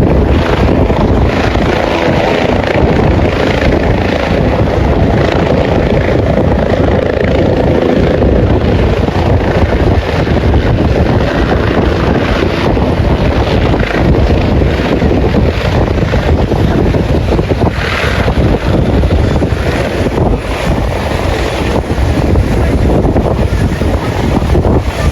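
Strong wind buffeting the microphone, a loud, steady rushing noise with heavy low rumble.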